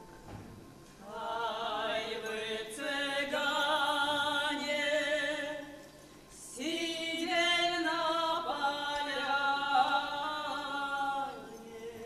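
Unaccompanied folk singing of a Nekrasov Cossack song, in two long drawn-out phrases with a wavering pitch and a short break about halfway through.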